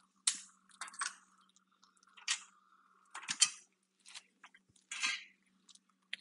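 Hand hammer striking steel, knocking the last rivet out of a rusted factory front cab mount on a truck frame, followed by clanks of the freed steel mount. The sharp metal clanks come one at a time at uneven intervals, each with a short ring.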